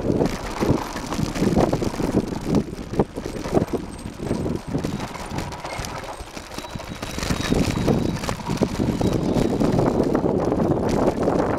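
Wind buffeting the microphone while riding a mountain bike down a rough dirt track, with rattles and knocks from the bike jolting over the ground. The wind rush grows louder and steadier over the last few seconds.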